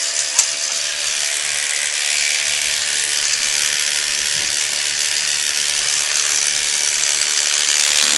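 Dermapen electric microneedling pen running, its small motor giving a steady buzz with a hiss, and a single click about half a second in.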